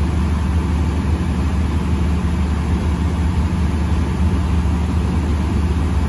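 Steady low rumble and rushing noise heard inside a passenger train carriage as the train runs.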